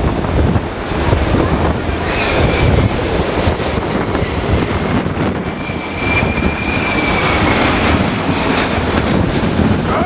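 Engines of an easyJet Airbus A320-family airliner on final approach, a steady jet roar with a high thin whine that comes through twice, the second time for a couple of seconds. Strong gusts buffet the microphone throughout.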